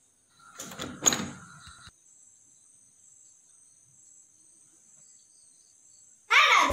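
Wardrobe door being opened: a few clicks from its handle and latch with a short squeak about a second in. Loud music starts near the end.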